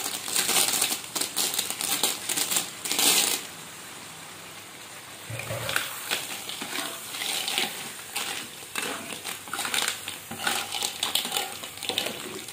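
Small lala clams (siput retak seribu) are tipped from a metal bowl into a wok, their shells clattering in a dense rattle for about three and a half seconds. After a short lull, a metal spatula stirs the shells around the wok in a run of clicks and scrapes.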